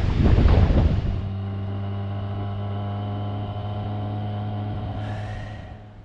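Wind buffeting the microphone over surf for about a second, then a motorcycle engine running steadily at an even speed, a constant hum that fades out near the end.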